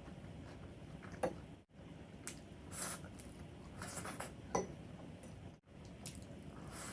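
Close-up wet chewing and smacking of food in the mouth, with several sharp squelching clicks, two of them louder about a second in and midway.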